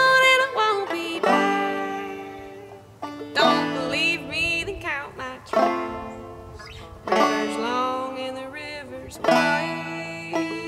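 Banjo picking an old-time tune under a woman's singing voice, the banjo phrases starting afresh about every two seconds.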